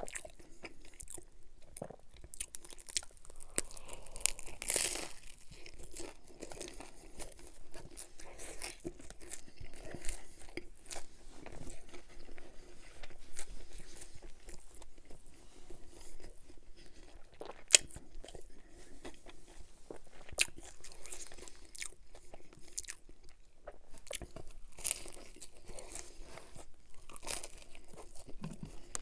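Close-miked biting and chewing of Domino's pan-crust pizza: crunchy bites into the crust and a steady run of small chewing clicks. The loudest crunch comes about five seconds in.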